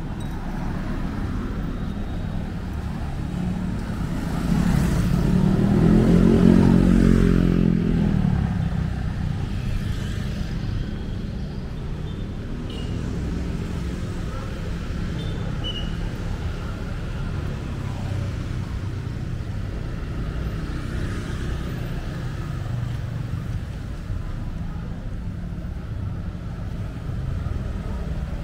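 City street traffic: a steady low rumble of passing cars and motorbikes, with one vehicle's engine passing close and loudest about six seconds in.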